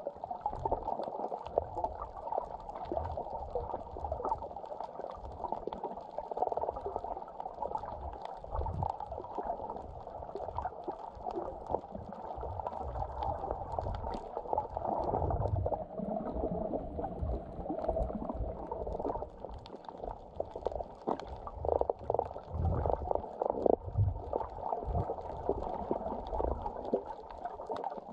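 Muffled sloshing and gurgling of water around a submerged camera, with irregular low rumbles and crackling.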